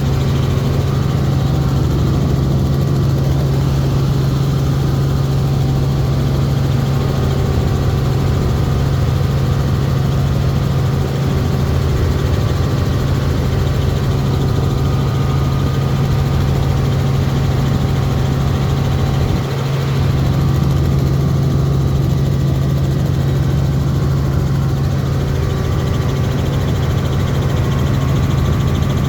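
Helicopter heard from inside the cabin: a loud, steady drone of the rotor and engine with a strong constant low hum.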